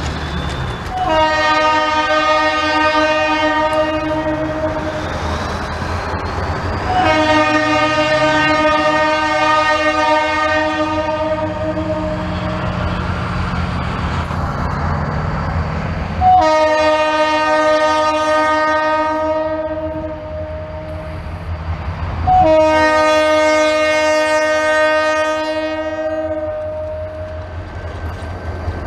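Diesel freight locomotive's multi-chime air horn sounding four long blasts a few seconds apart. Under the horn, the engines of the locomotive consist rumble as the train approaches.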